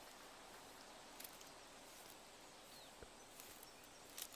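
Near silence: a faint steady hiss with a few soft clicks scattered through it.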